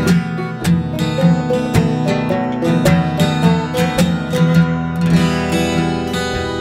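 Folk band playing live, led by acoustic guitar strummed to a steady beat of about three strokes a second.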